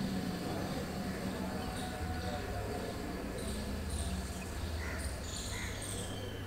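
Short, high bird chirps, several in quick succession in the second half, over a steady low outdoor rumble.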